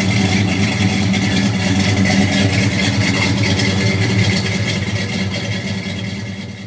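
Buick 401 nailhead V8 running steadily with a low, even engine note, fading out near the end.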